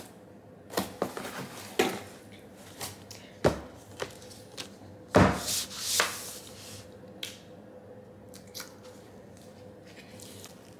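Cardboard box and packing being handled while a heavy hardcover book is lifted out: a scattering of knocks and clicks, with a longer rustling scrape about five to six seconds in.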